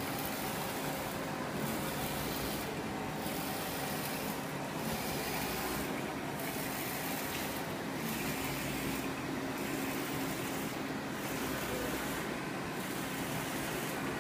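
UV flatbed phone-case printer running: a steady machine hum under a hiss that dips and comes back about every one and a half seconds, as the print carriage sweeps back and forth.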